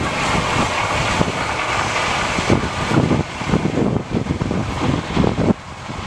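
Distant John Deere combine harvesters running while harvesting corn, heard as a steady rushing noise, with wind buffeting the microphone in gusts from about halfway through.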